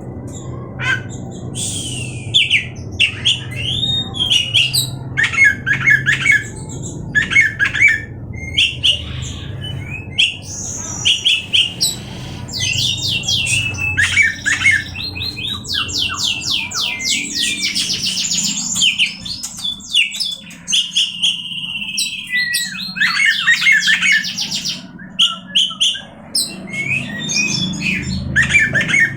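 Oriental magpie-robin (kacer) singing a varied song of short whistled and chattering phrases, with fast repeated-note trills through the middle and a held whistle about two-thirds of the way through.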